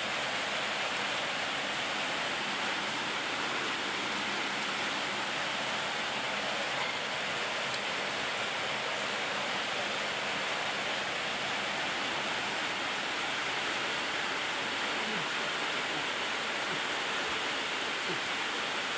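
A steady, even hiss with no pauses or changes in level.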